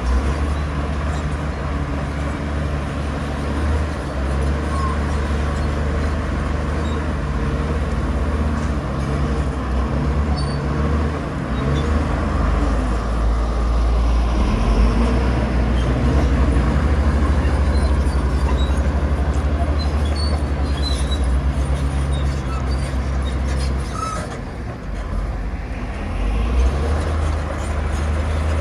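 Bulldozer's diesel engine running steadily with a deep low hum. Near the end it eases off briefly, then picks up again.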